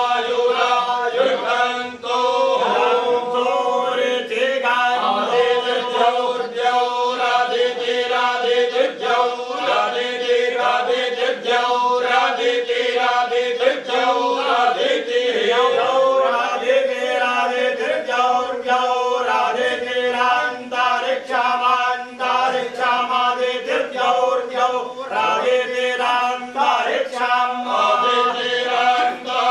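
A group of men chanting Vedic mantras in unison, held mostly on one steady note and broken into quick rhythmic syllables.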